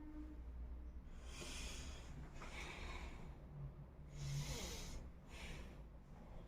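A person sniffing four times through the nose, each sniff short and breathy, at a dried red chilli to bring on a sneeze.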